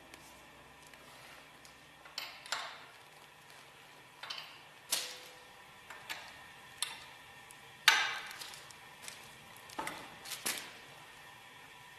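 Open-end spanner clinking on a steel hex-head screw plug as it is fitted and tightened into the separator frame: about ten sharp metal clicks and knocks at irregular intervals, the loudest about eight seconds in.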